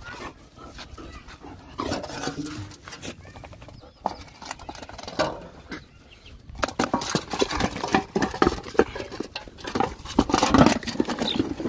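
Hungry dogs and puppies eating and jostling at a metal bowl as food is tipped in from a plastic bucket. A dense run of quick clicks and scuffles starts about six and a half seconds in and grows louder.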